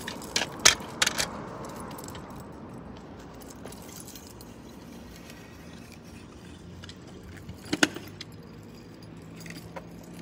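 Kick scooter: a few sharp metal clicks from the handlebar being set, then its small wheels rolling on concrete with a rattling jangle, and a short burst of clatter later as it rolls on.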